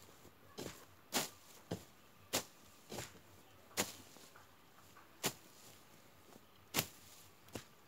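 Long-handled blade slashing through tall dry grass and weeds, a sharp swish with each stroke: about nine strokes at uneven intervals, some in quick pairs.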